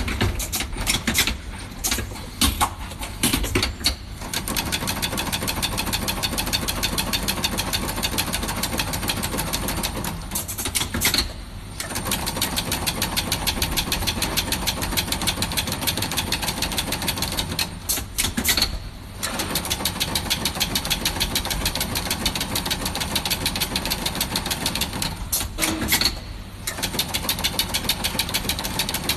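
Factory machinery running with a rapid, even clatter of many clicks a second, broken by short pauses a few times.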